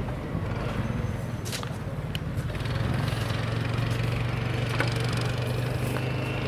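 Small engine of a riding infield groomer running at a steady pace as it drags the infield, growing a little louder about halfway through, with a few faint clicks.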